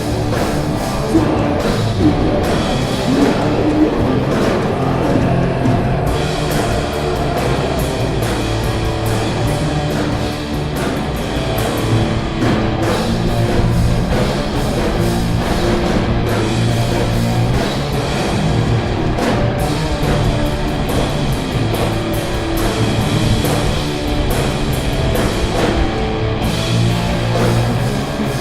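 Stoner metal band playing: distorted electric guitars, bass and a drum kit in a steady, heavy groove.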